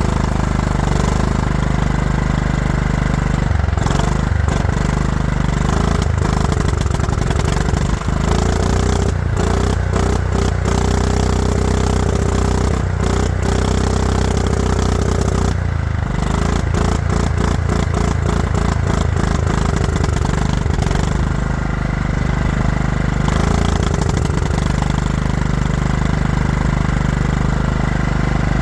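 Cold lawn mower engine running unevenly soon after a hard start, its speed rising and falling several times. The rough idle is put down to the cold, and to an air filter so clogged that it acts as a choke.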